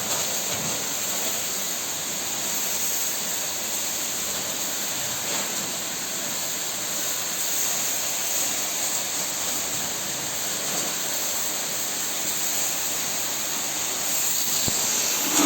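Steady spray of a high-pressure water jet from a cow washing machine's spray gun, driven by an electric three-piston pump: an even, unbroken rush of water.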